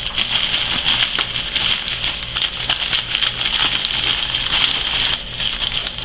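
Packing material rustling and crinkling with light scattered clicks as a parcel of coins is unwrapped by hand, over a steady high hiss.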